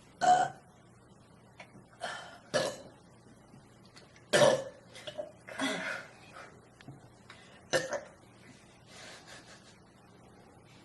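A person burping over and over: about half a dozen short, forced burps, fuelled by chugged soda, with the loudest near the start and about four seconds in.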